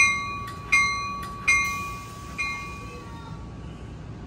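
Amtrak Capitol Corridor train's bell ringing in slow, even strokes, about one every three-quarters of a second. The last stroke, about two and a half seconds in, is weaker, and then the bell stops, leaving a low rumble.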